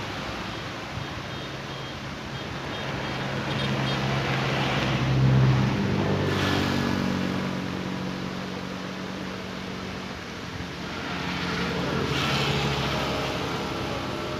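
Motor vehicles passing on a road: engine noise swells and fades as one vehicle goes by about five seconds in, and a second passes around twelve seconds, over a steady background hiss.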